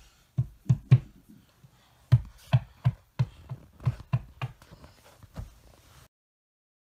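A series of soft, irregular thumps and taps, roughly two a second. About six seconds in, the sound cuts out to dead silence.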